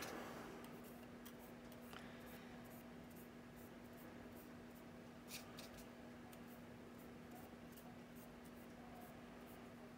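Faint sounds of a paint brush working a thin oil wash inside a plastic scale-model exhaust nozzle: a few brief soft ticks, a small cluster about five seconds in, over a steady low hum.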